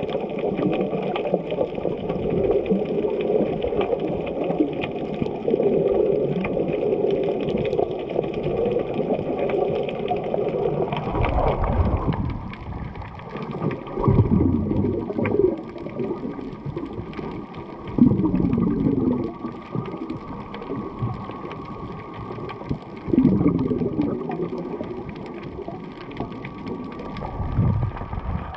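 Muffled water sloshing and gurgling around a snorkeler's camera held in the water. It is steady for about the first ten seconds, then comes as several separate louder surges.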